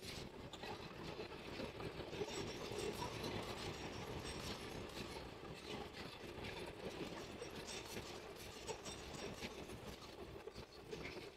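State Railway of Thailand blue-and-orange diesel railcar set rolling slowly past, its engines running under a steady rumble, with scattered clacks as the wheels cross rail joints and points.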